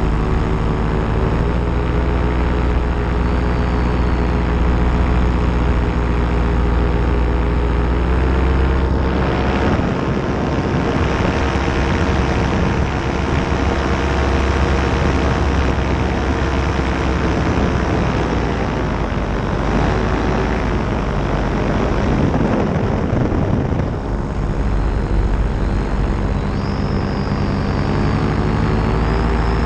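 Paramotor engine and propeller running steadily in flight. The engine note rises slightly about nine seconds in, turns rougher and noisier through the middle, then comes back to a clean, even tone about 24 seconds in.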